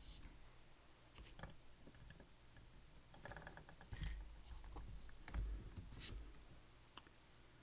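Faint, scattered clicks and taps of small metal lock parts and tools being handled, with duller knocks about four and five and a half seconds in.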